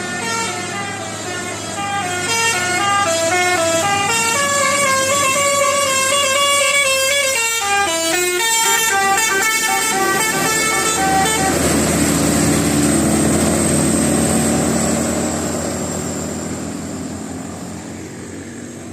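A bus's Basuri multi-tone 'telolet' horn plays a tune of short notes stepping up and down in pitch. About eleven seconds in the tune stops, and the steady rumble of the bus's engine takes over and fades away near the end.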